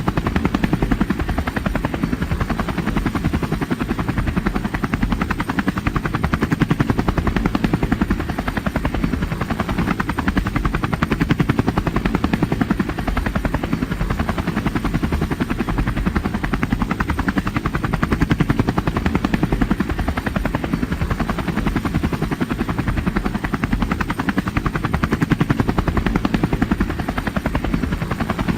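Helicopter flying, its rotor beating in a fast, steady chop that holds even with no change in pitch or level.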